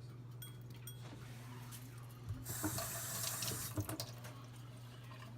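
Kitchen tap turned on, running for about a second and a half, then shut off, over a steady low hum.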